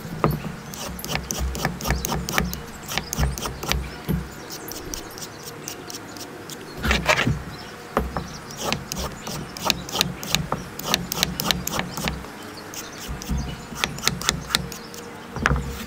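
Vegetable peeler shaving strips off a raw carrot on a cutting board: quick repeated scraping strokes, several a second in runs with short pauses, with knocks of the carrot against the board.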